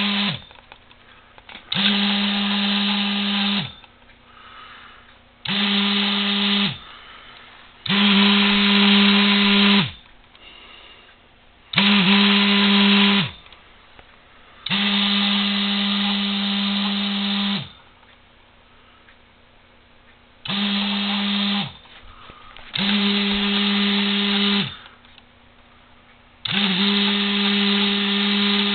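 Small 12 V DC motor switched by a relay, running in about eight bursts of one to three seconds at irregular intervals. Each burst is a steady whine that starts abruptly and winds down with a brief drop in pitch when the power cuts.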